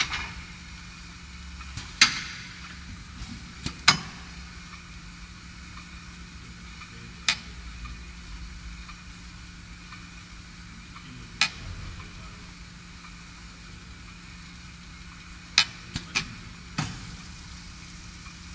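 Automated brake-disc machining cell: a steady machine hum with a thin high whine, broken at irregular intervals by sharp metallic clacks and clunks from its pneumatic slides and gauging station as they handle a large brake disc.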